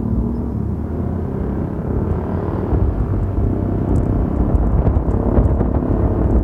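Yamaha FreeGo scooter's 125 cc single-cylinder engine running under acceleration, a low rumble that grows louder, with wind buffeting the microphone from about four seconds in as speed builds.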